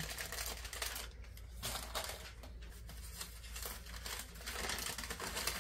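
White paper gift wrapping crinkling and rustling as it is handled and unwrapped by hand, with a short lull about a second in.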